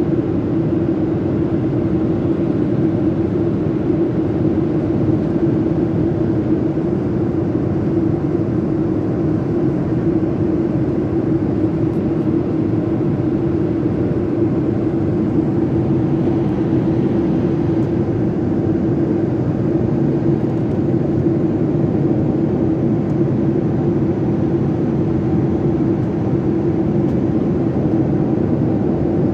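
Steady cabin drone of a Boeing 737-800 in flight: engine and airflow noise heard from a window seat, with a steady low hum running through it and no change in pitch or level.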